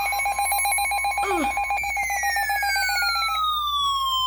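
Emergency alert attention tone for a tornado warning: a loud, rapidly pulsing two-tone alert that stops about three and a half seconds in. A second alert sound joins about two seconds in, a tone sliding steadily down in pitch.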